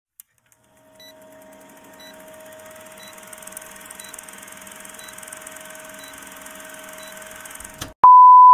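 Old-film countdown sound effect: faint projector-like hiss and crackle with a steady hum and soft ticks at regular spacing. Near the end it cuts to a loud, steady test-tone beep that goes with TV colour bars.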